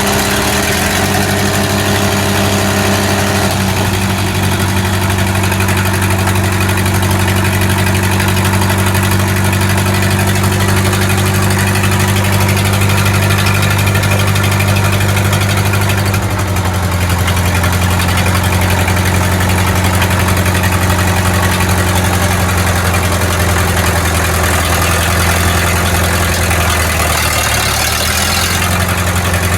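An engine running steadily under a constant throttle, its note shifting slightly about four seconds in, again at about sixteen seconds and near the end.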